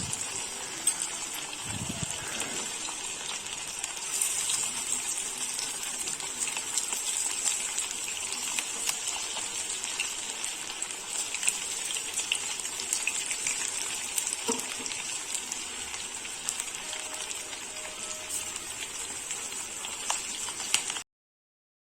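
Battered chicken pakodi pieces deep-frying in hot oil over a low flame: a steady sizzle with many small crackles and pops. The sound cuts off abruptly about a second before the end.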